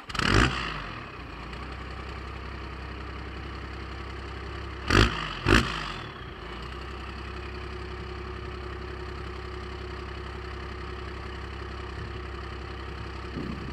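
A 12-valve Cummins inline-six turbo diesel fires up and flares as it catches, then settles into a steady idle. About five seconds in there are two quick, loud throttle blips half a second apart before it goes back to idling.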